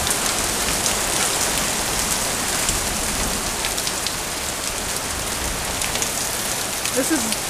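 Heavy rain coming down hard in a steady hiss, with scattered close drops ticking.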